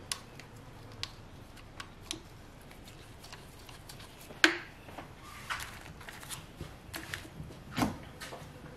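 Engine wiring-harness clips and connectors being handled and pressed into place by hand: scattered light clicks and rustles, with a sharp snap about halfway through and another click near the end.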